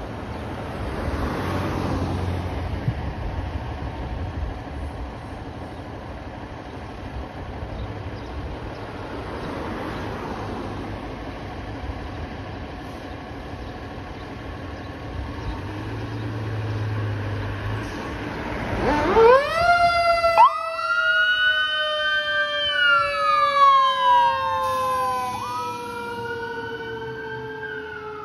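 Fire apparatus engines rumbling steadily. About two-thirds of the way through, a fire-engine siren winds up sharply and then slowly winds down, while a second siren tone wails up and down over it. Near the end the siren winds up again.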